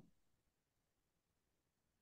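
Near silence, with one faint soft thump right at the start.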